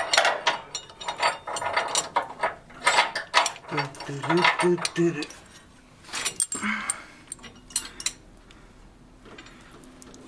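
Clicking and knocking of an Eibach front sway bar's steel mounting bracket being worked by hand over its rubber bushing, a stiff fit, with a few short pitched squeaks about four to five seconds in; the handling goes quiet after about eight seconds.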